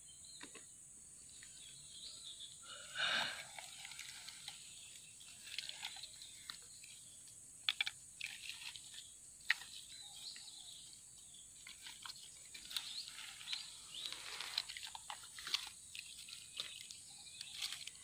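Small clicks and rustles of hands handling bamboo sticks and twigs while setting a ground snare, over a steady high insect buzz. A louder short call about three seconds in, with scattered bird chirps.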